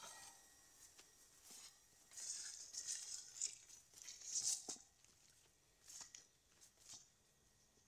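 Leaves and grass rustling as they brush past while someone pushes through thick plants, in several hissy bursts. The loudest burst comes about four and a half seconds in, and two shorter rustles follow near the end.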